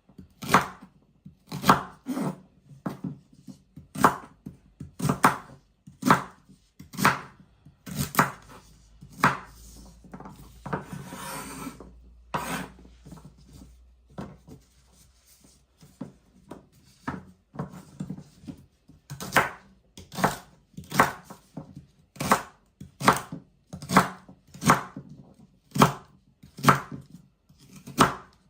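Knife chopping celery stalks on a cutting board, in separate sharp cuts about once a second. A brief rustling noise comes about a third of the way in, and the cuts are softer for a few seconds after it.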